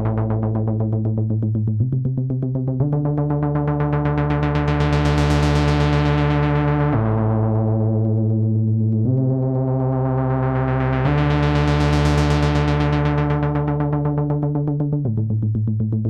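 Arturia JUN-6V software synthesizer, an emulation of the Roland Juno-6, playing its "GrowlerPeggio" preset: a fast, rapidly pulsing pattern of low synth notes that moves to new pitches every few seconds. The tone brightens and darkens in slow filter sweeps, brightest about a third of the way in and again around three quarters through.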